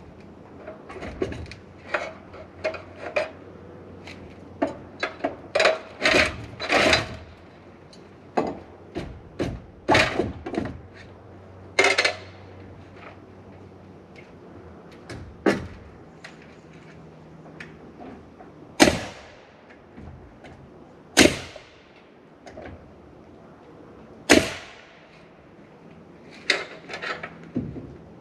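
Fascia board being fastened to the rafter ends of a wooden garage roof: a busy run of wooden knocks and taps, then several loud single sharp shots from a nail gun, a few seconds apart.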